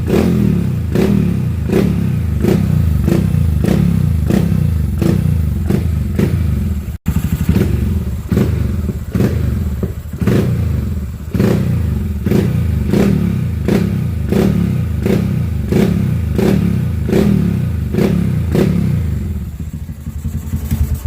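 Modified Honda CG Start motorcycle's single-cylinder engine rumbling, with a regular lope of sharp beats about one and a half a second. The sound cuts out for an instant about seven seconds in.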